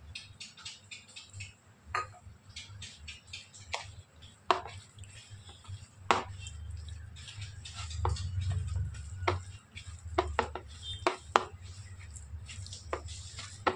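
A hand kneading marinated raw chicken with cornflour in a ceramic plate, with frequent irregular clicks and knocks against the plate.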